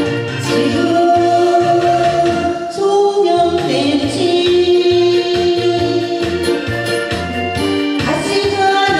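A woman singing a Korean gayo song into a handheld microphone, holding long notes over keyboard-led accompaniment with a steady pulsing bass line.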